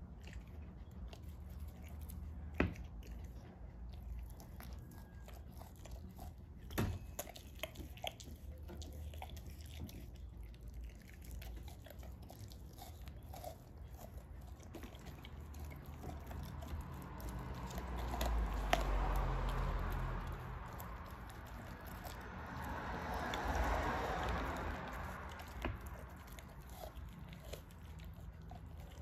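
American bulldog licking and chewing a chunk of raw meat: wet mouth sounds with scattered sharp clicks, swelling louder twice in the second half.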